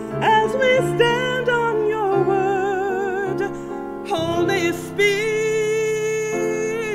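A woman singing a worship song solo, holding long notes with wide vibrato, with piano accompaniment.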